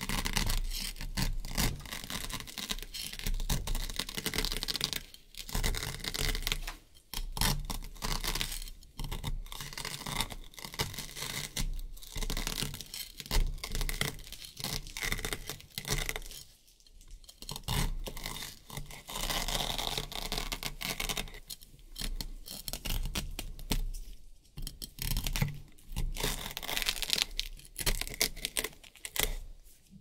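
A knife blade sawing down through a stack of black and white hook-and-loop Velcro strips: a scratchy rasping in rapid, repeated back-and-forth strokes, broken by a few brief pauses.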